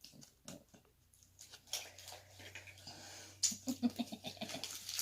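A plastic candy wrapper crinkling in the hands as a hard candy is unwrapped, with scattered small clicks and crackles. A few short, low vocal sounds come in quick succession about three and a half seconds in.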